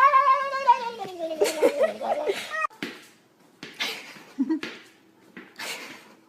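Cat yowling: one long, wavering meow that slides down in pitch and cuts off abruptly about two and a half seconds in. A few short, soft noises follow.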